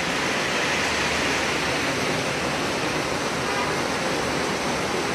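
Heavy rain pouring onto a paved road: a dense, steady hiss.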